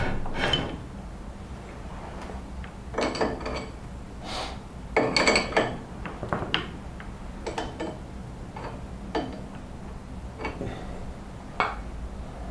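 Irregular metallic clinks and knocks of steel parts and tools being handled, with the loudest cluster about halfway through, over a low steady hum.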